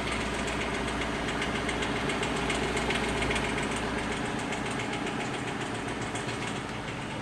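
Lexus LS460's 4.6-litre V8 idling with a rapid, even clicking over the engine sound: the clicking noise the owner is recording.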